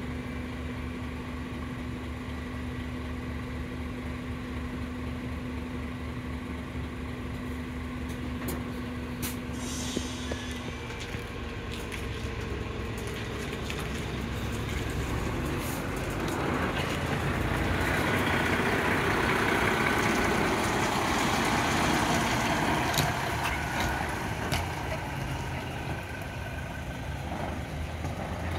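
Mitsubishi Fuso Aero King double-decker coach's diesel engine idling, with a short hiss of air about nine seconds in. From about halfway the engine note rises as the coach pulls away, then eases off near the end.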